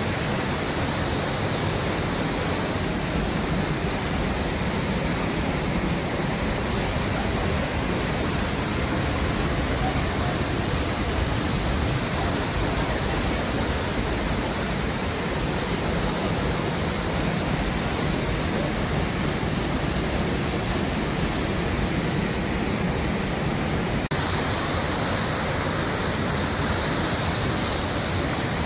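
Waterfall rushing through rock inside a mountain: a loud, steady wash of water noise, its tone shifting slightly a few seconds before the end.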